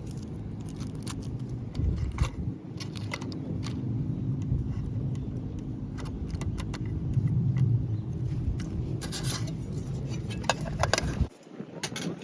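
Light metallic clinks and scrapes, scattered, over a steady low hum that cuts off abruptly near the end.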